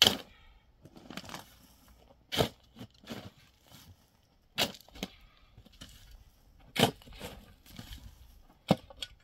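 Sharp knocks from hand-tool work, about six at irregular gaps of roughly two seconds, with softer scraping and rustling between.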